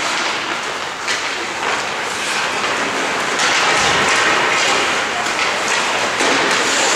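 Ice hockey play in an arena: a steady hiss of skates on the ice with voices calling out, a sharp knock about a second in, and the noise growing a little louder past the middle.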